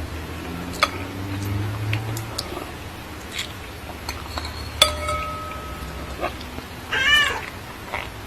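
A domestic cat meows once near the end, a short call that rises and falls in pitch. Several sharp clicks or taps come earlier, the loudest about five seconds in, followed by a brief ringing tone.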